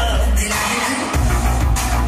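Pop dance music track playing, its heavy bass dropping out briefly and coming back in about a second in.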